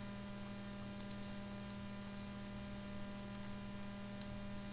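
Steady electrical mains hum in the recording: a strong low tone with a series of fainter, evenly spaced higher tones above it.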